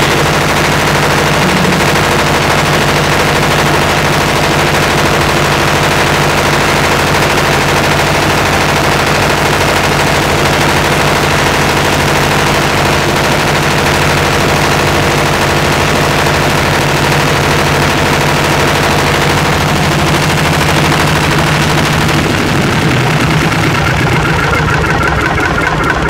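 Diesel engine of a concrete mixer-pump running steadily under load with a hard, rapid clatter while it drives the hydraulic rams that lift the machine's folding loading hopper. Its steady note breaks up about 22 seconds in.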